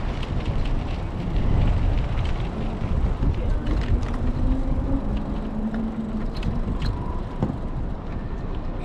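Wind rumbling on the microphone during a bicycle ride, with scattered clicks and rattles and a faint steady hum for a few seconds in the middle.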